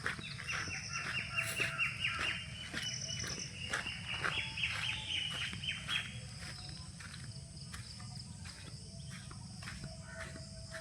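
Birds chirping: a fast run of chirps for about the first six seconds, with shorter higher calls repeating, over a steady low rumble.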